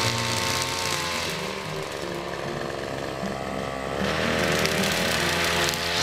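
Petrol brush cutter's engine running at high revs while cutting grass. About a second in the revs drop for a couple of seconds, then open up again near four seconds.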